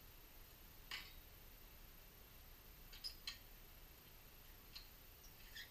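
A few faint, sharp metallic clicks of a wheel wrench working the wheel bolts on a car's wheel. There is one about a second in, two in quick succession around three seconds, and a couple more near the end, over near silence.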